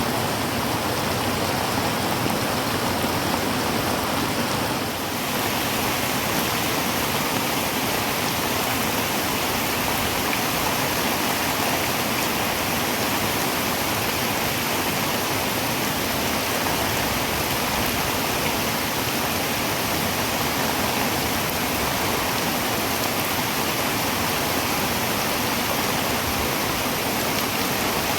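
Heavy rain falling on a tin roof: a steady, dense hiss of drops.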